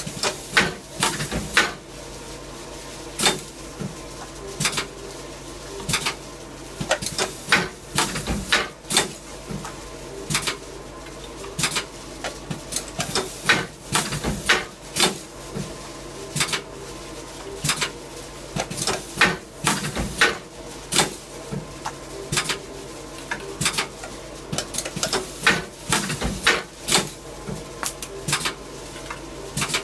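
Rilecart R500 calendar wire-binding machine at work: sharp mechanical clacks, often in quick pairs, every second or two as it binds calendars, over a steady machine hum.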